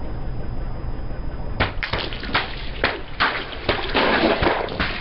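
Low rumble, then from about a second and a half in a run of irregular crackling, crunching snaps: something brittle being crushed under a car tyre.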